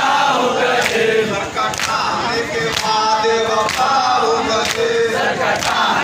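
A large crowd of men chanting together in unison on a drawn-out melodic line, with a sharp beat roughly once a second.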